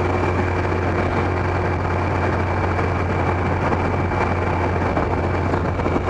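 Kawasaki ZX-12R's inline-four engine running at a steady cruise, a constant low hum under an even rush of wind and wet-road noise.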